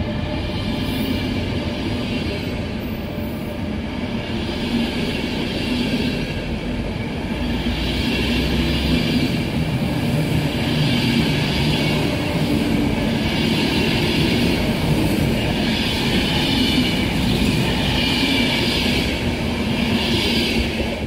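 Passenger coaches rolling past along the track as a train pulls out, with a continuous rumble of wheels on rail. A higher wheel noise swells and fades about every two seconds as the coaches go by.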